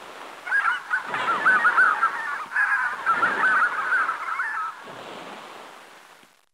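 Beach sound effect: surf washing in with seagulls calling over it. The gull calls stop about three-quarters of the way through, and the surf then fades out.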